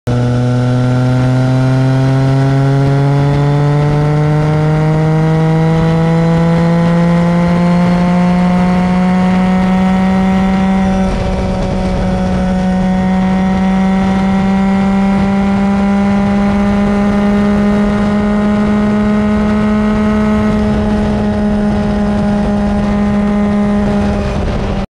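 Yamaha Tracer 900's inline-three engine pulling at motorway speed, its pitch climbing steadily for about eleven seconds as the bike accelerates, then holding nearly steady at a higher speed after a brief change about halfway, over a rush of wind and road noise.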